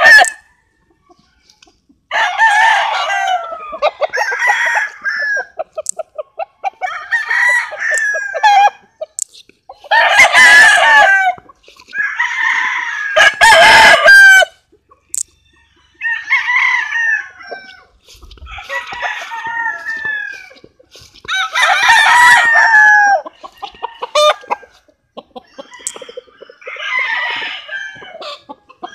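Roosters crowing one after another: about ten separate crows of a second or two each, with short silent gaps between them.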